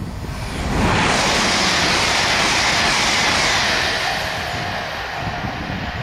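A Hitachi Class 802 high-speed multiple unit passing at speed: a rush of wheel and air noise comes in suddenly about a second in, stays loud for about three seconds, then fades as the train draws away.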